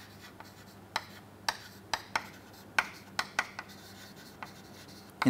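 Chalk writing on a chalkboard: a string of short, sharp taps and scratches at irregular intervals as the letters are formed.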